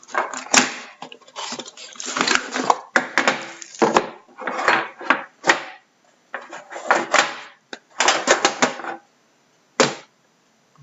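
A sealed sports-card hobby box and its wrapping being handled and opened: a run of irregular rustling, crinkling strokes that stops about nine seconds in, with one short last stroke near the end.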